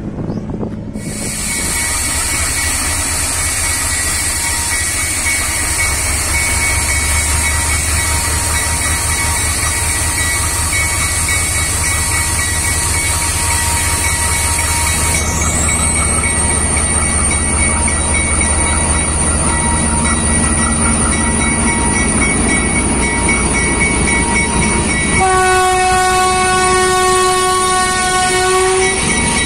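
GE U20C diesel-electric locomotive idling with a steady low rumble, a high whine running over it. Near the end a locomotive air horn sounds one long blast of about four seconds, followed by a short toot.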